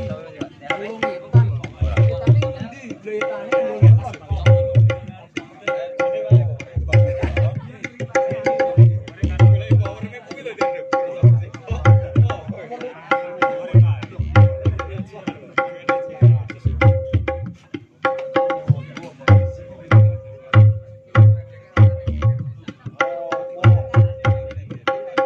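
Percussion-led music played loud through a miniature sound system of small stacked speaker cabinets, with deep bass thumps in groups of three repeating about every two seconds.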